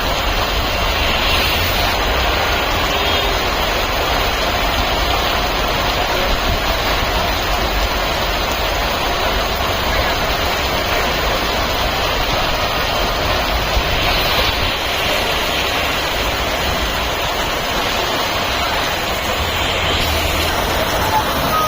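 Heavy rain and running water on a waterlogged street, an even rushing noise with a low rumble underneath.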